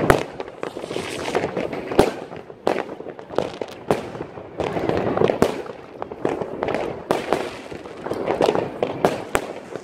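Fireworks and firecrackers going off all around: many sharp bangs at irregular intervals over continuous crackling, with especially loud bangs right at the start and about two seconds in.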